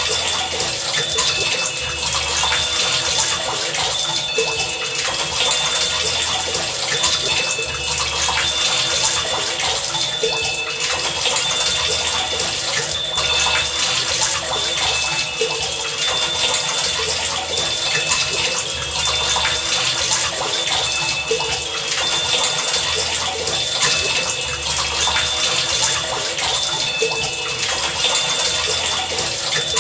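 Heavy rain falling steadily. Over it, short high-pitched tones and a low hum come and go in a loose repeating pattern.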